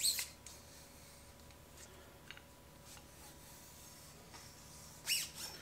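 A few brief rubbing squeaks as hands slide on and turn the chrome tube of an inverted motorcycle fork leg. There is one at the start and one about five seconds in, with fainter ones between.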